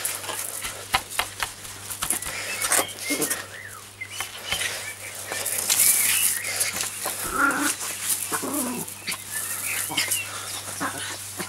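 A small dog vocalising as it attacks a push broom, over repeated scrapes and knocks of the broom head on stone paving.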